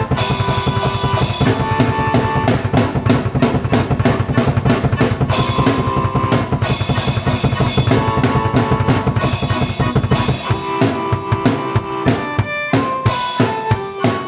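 Drum kit and keyboard played together: a busy beat of bass drum and snare under held keyboard chords. About ten and a half seconds in, the bass drops out and the drumming becomes sparser.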